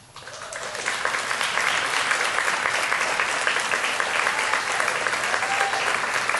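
Audience applause that starts right after the orchestra's final notes die away, swelling over the first second into steady clapping.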